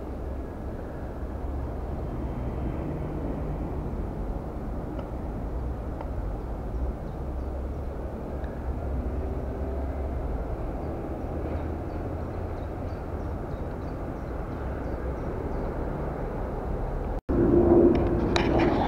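Steady low outdoor rumble with no clear single source, with a few faint high chirps over it. After a cut near the end the noise is louder, with a steady hum and a few clicks.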